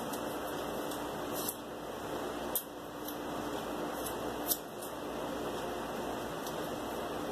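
Hands working small pieces of tape and cardboard: about five short, crisp snips and ticks, over a steady background hum.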